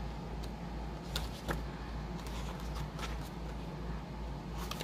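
A few faint light taps and rustles of sheets of card paper being handled, over a steady low hum.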